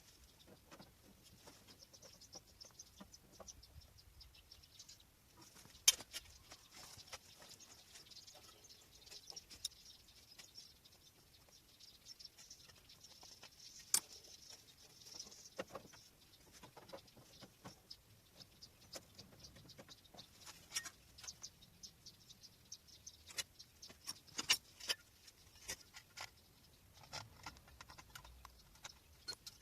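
Hand tools working on a car's steel fender: scattered light taps and clicks over a faint scraping hiss, with two sharper knocks, one about six seconds in and one about halfway through.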